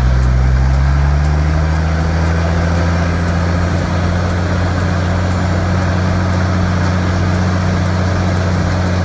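Off-road 4x4 engine running steadily while driving, its pitch rising over the first second or two and then holding.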